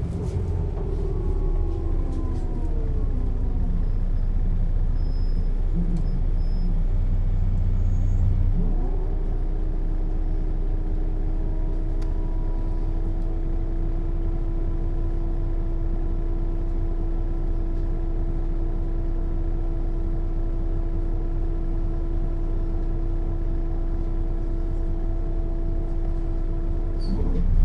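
1996 Setra S 315 UL bus with ZF gearbox: for the first eight seconds or so the engine and drivetrain tones fall in pitch as the bus slows, then a single steady hum holds unchanged while it stands, and near the end a loud sound comes just before the tones start rising again as it pulls away.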